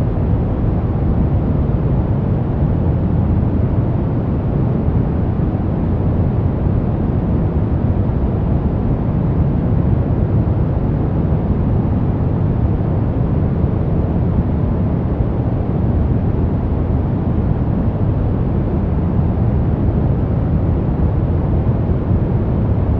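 Continuous brown noise: a steady, deep rushing hiss with most of its energy low down, unchanging throughout.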